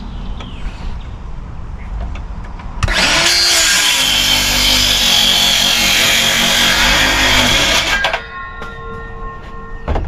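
Handheld circular saw starts about three seconds in, its whine rising as it comes up to speed, then cuts through a wooden railing board for about five seconds. The cutting noise stops suddenly, and the saw's steady whine carries on for a couple of seconds after.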